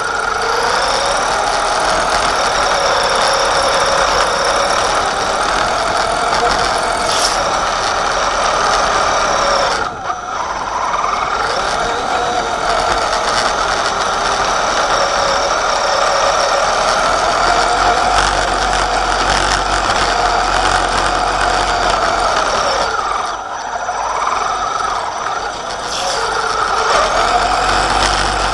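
Electric drive motor and two-speed gearbox (in high) of an Axial Wraith RC truck whining, the pitch rising and falling with the throttle. It drops briefly about ten seconds in and eases off again for a couple of seconds later on.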